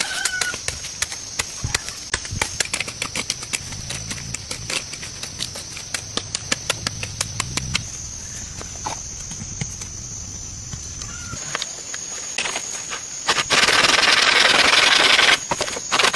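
Rapid, irregular sharp knocks and clicks over a steady thin high-pitched whine. Near the end comes a loud rushing noise lasting about two seconds, then a shorter one.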